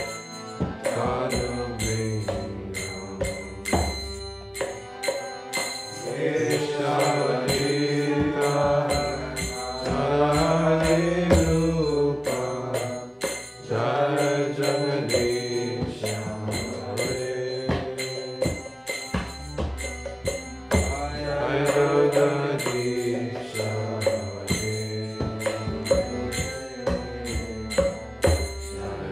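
Kirtan: voices chanting a devotional mantra in sung phrases over a steady held drone, with small hand cymbals (kartals) striking a regular beat.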